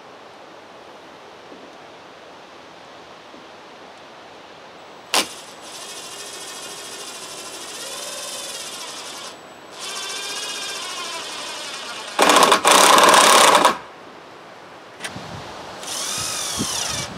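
Cordless drill driving screws into a wooden spacer block, starting about five seconds in after low background noise. It runs in several spurts of motor whine, the pitch sagging as the screw bites, with one loud, harsh burst about twelve seconds in.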